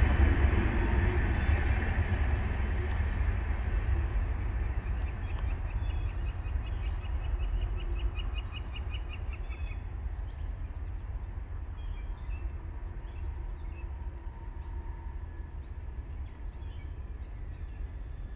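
Freight train rumbling as its last cars pull away, fading steadily into a low, distant rumble. About halfway through, a rapid run of high ticks sounds for a few seconds.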